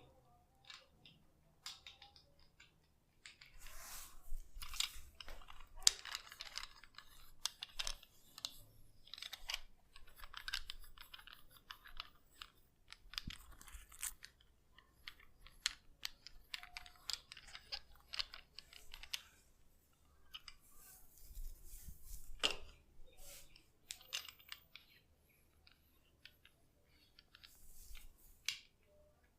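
Hands massaging a head, fingers rubbing and scratching through hair and scalp: crackly rustling in runs of a few seconds, full of small clicks, with quiet gaps between.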